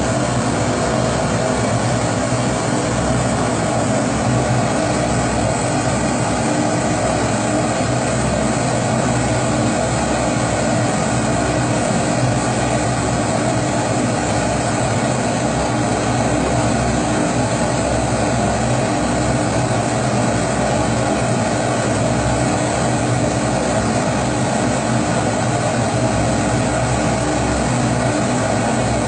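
Pressurized kerosene Primus stove (babour/bajour) burning at full flame, a steady, unchanging rush of burning vapour from the burner.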